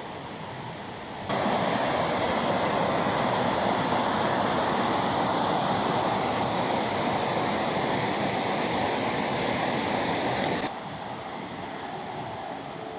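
Water rushing over rocks in a small cascading waterfall: a steady loud rush that comes in suddenly about a second in and drops back suddenly to a quieter rushing background near the end.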